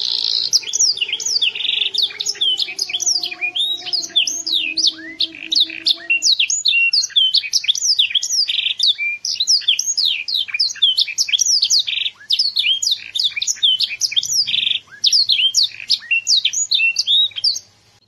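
Young domestic canary singing a long, loud song of rapid, fast-falling whistled notes. The song stops just before the end.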